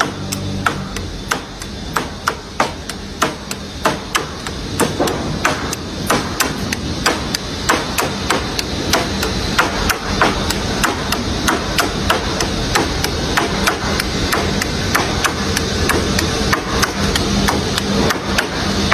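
Repeated hammer strikes, about two a second, keeping up a steady rhythm throughout.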